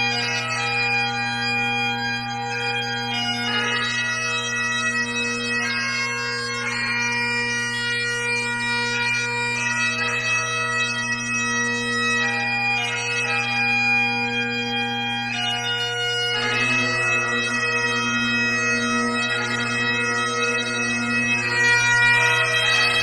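Highland bagpipes playing a slow melody over a steady low drone.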